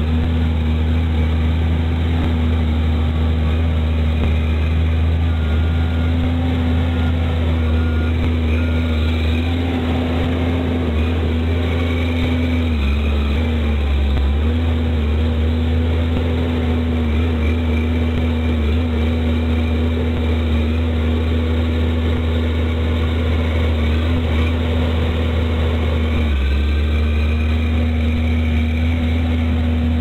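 Heavy diesel engine running with a steady low drone, the engine of a loaded logging truck stuck in deep mud. The pitch dips briefly three times.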